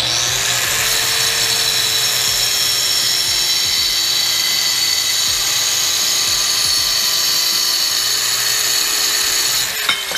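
DeWalt DWC860W 4-3/8-inch hand-held wet/dry tile saw with a diamond blade, cross-cutting high-polish hard porcelain tile. The motor is switched on at the start and winds up to a loud, steady high whine that holds through the cut. Near the end it is released, and the pitch starts falling as the blade spins down.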